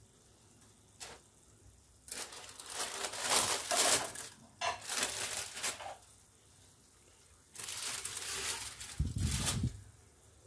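Aluminium foil crinkling and rustling as it is peeled back off a pot of steamed rice, in three bursts, with a low thump near the end.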